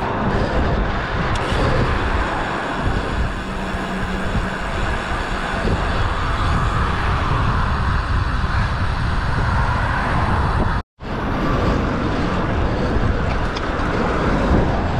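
Wind rushing over a bike-mounted camera's microphone while cycling along a road, mixed with tyre and passing-traffic noise. The sound cuts out for an instant about eleven seconds in.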